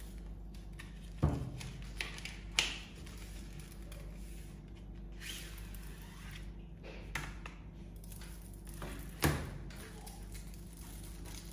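A chocolate bar's cardboard box being opened and the foil-wrapped bar slid out, then the foil unfolded: soft rustling and scraping of card and foil, with a few sharp knocks on the table, the loudest about a second in and near the end.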